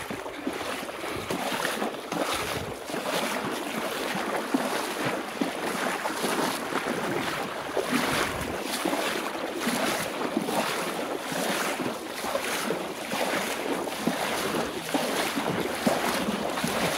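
Water sloshing and splashing in uneven surges as a person wades through a fast-flowing flooded river.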